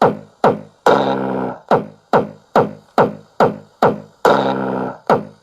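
Electronic dance music with a heavy bass beat, played loud through the miniature VW Beetle model's built-in sound system. Punchy bass hits fall in pitch, about two a second, and a longer held synth chord comes in twice.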